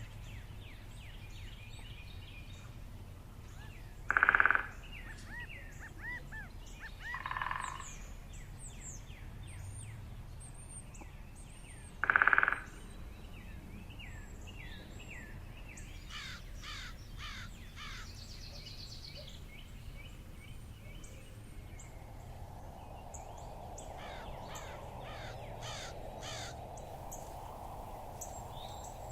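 Birdsong: small birds chirping and twittering throughout, with a much louder short call from a larger bird twice, about eight seconds apart.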